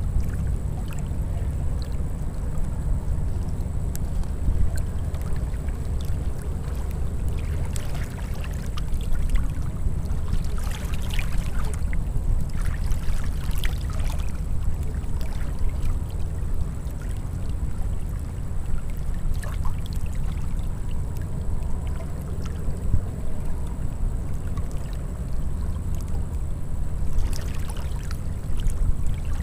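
Choppy open water lapping and splashing close to the camera, over a steady low rumble of wind on the microphone; a few louder splashes come about halfway through and again near the end.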